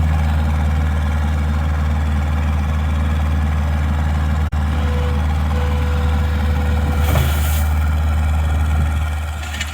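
Skid steer engine running steadily under load with a deep, even drone, with a brief hiss about seven seconds in.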